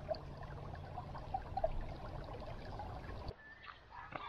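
Shallow stream water running and gurgling around a rock. Near the end the water sound cuts off and a rooster starts to crow.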